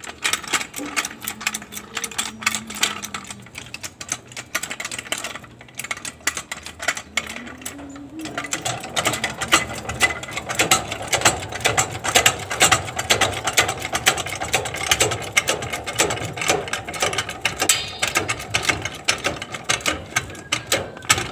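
Hydraulic floor jack being pumped to lift a motorcycle sidecar: a rapid, uneven run of mechanical clicks and clacks, growing louder and fuller a little over a third of the way in.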